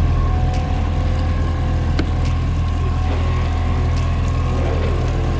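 Fishing boat's outboard motor running steadily at a low trolling speed, a constant low engine hum with a few faint ticks over it.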